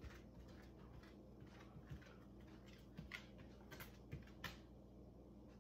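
A dog's claws clicking on a hard floor as it walks: a handful of faint, irregularly spaced clicks.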